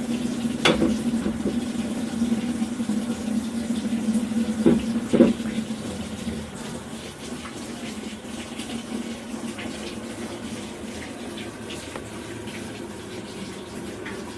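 Washing machine filling with water, water running steadily into the tub. A steady hum runs under it for about the first six seconds, with three short knocks, then the water runs on a little more quietly.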